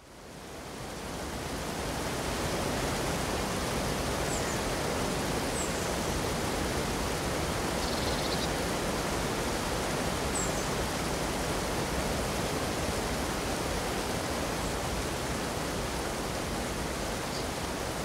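Steady rush of whitewater cascading through a rocky gorge. It fades in over the first couple of seconds, with a few faint high chirps above it.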